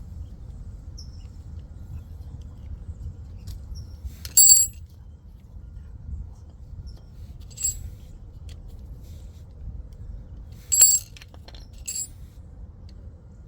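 Metal clinks from brake pads and their steel clips being handled: four short, ringing clinks, the loudest about four and a half and eleven seconds in, over a steady low rumble.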